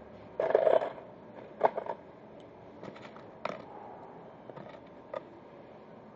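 Hand-handling of small metal assembly hardware: a loud brief rustle about half a second in, then a scatter of sharp clicks and light knocks, over steady factory background noise.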